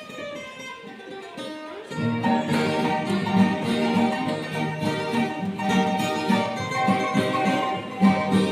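Acoustic guitar music: a few picked notes at first, then about two seconds in it gets louder and fuller, with low bass notes joining.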